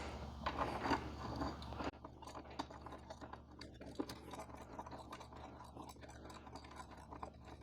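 Faint small clicks and scrapes of a steel bolt and washer being handled and threaded by hand into a rack leg. The ticks are busier in the first two seconds, then sparser and fainter.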